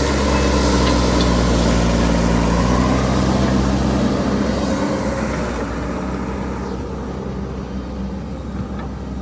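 Heavy diesel engine of a road-levelling machine running steadily, then fading from about four seconds in.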